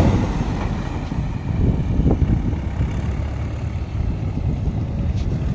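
Mahindra 585 DI XP Plus tractor's diesel engine running under load as it pulls a fully loaded trolley away, a steady low rumble.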